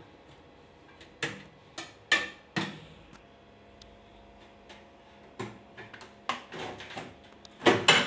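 Screwdriver and the microwave's sheet-metal outer cover clicking and knocking as the cover screws are taken out: a string of sharp separate clicks and clanks, the loudest near the end.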